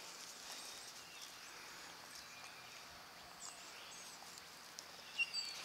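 Quiet outdoor background noise, with a few faint, brief high-pitched sounds and one short sharp sound about five seconds in.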